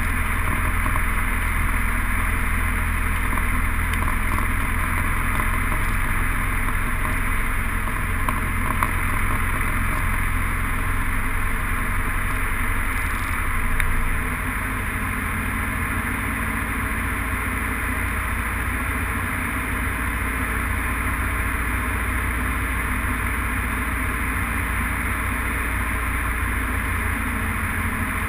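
Cabin noise of a single-engine light aircraft in flight: a steady drone of the piston engine and propeller mixed with airflow rush. The level drops slightly about halfway through.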